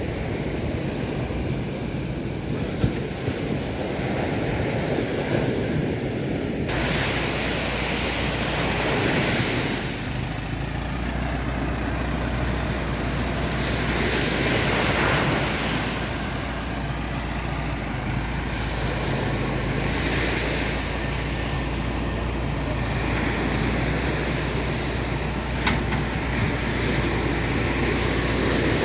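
Surf breaking with wind buffeting the microphone. From about seven seconds in, a vehicle engine runs underneath as a steady low drone.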